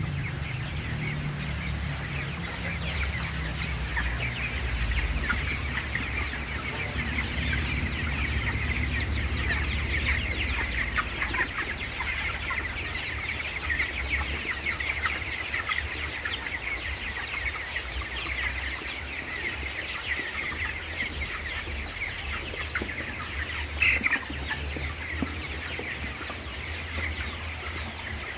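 A flock of young broiler chickens calling continuously, many short high calls overlapping, with one louder call near the end. A low rumble runs underneath.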